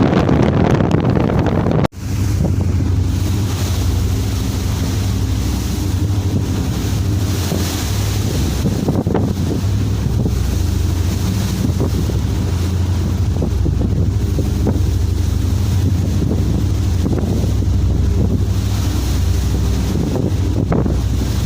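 A ship's engine hums steadily under strong wind buffeting the microphone, with waves washing alongside. The sound drops out briefly about two seconds in.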